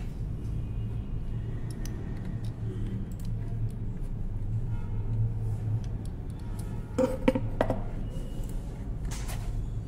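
Shimano Altus RD-M2000 bicycle rear derailleur handled in the hands, then set down on a shelf with a short cluster of clicks and knocks about seven seconds in and another knock near the end, over a steady low hum.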